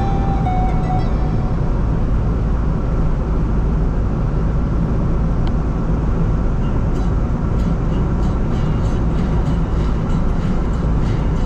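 Steady low rumble of a moving vehicle, with light, regularly spaced clicks joining about seven seconds in.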